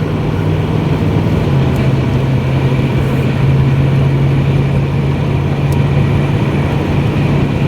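Car engine drone and road noise heard from inside the moving vehicle: a steady low hum over a dense rumble, the hum dropping slightly in pitch about a second and a half in.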